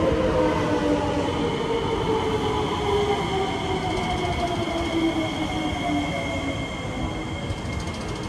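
SMRT C151B metro train braking into the platform, its traction motors whining in several tones that fall slowly in pitch, over a steady high whine; the sound eases off near the end as the train slows.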